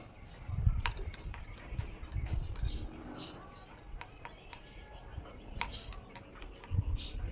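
Small male bird chirping in short, high notes about twice a second while fighting its reflection in a motorcycle mirror, with sharp taps of its beak striking the mirror, two of them loud.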